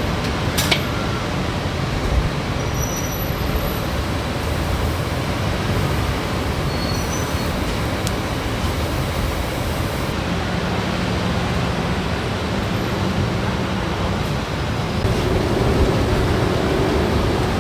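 Steady traffic noise from a busy city road, with a few brief clicks about a second in and a vehicle engine hum growing louder near the end.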